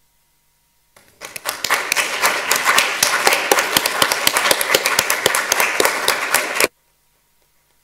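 Audience applauding: the clapping starts about a second in, builds quickly to full strength, then cuts off abruptly near the end.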